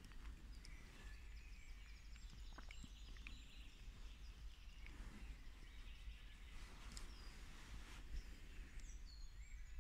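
Faint songbird song in woodland: several thin whistled phrases and a rapid trill of repeated high notes, over a steady low rumble.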